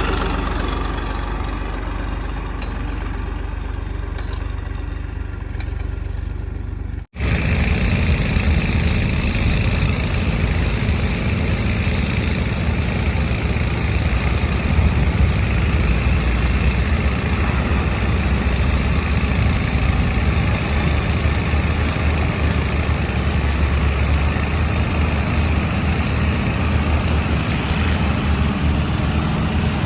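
Heavy diesel engine running steadily. About seven seconds in, the sound cuts out for an instant, then a louder, deeper engine runs on.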